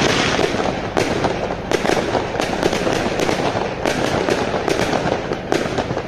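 Fireworks display going off: a dense, continuous crackle of bursting shells and fountains, with sharp bangs about twice a second.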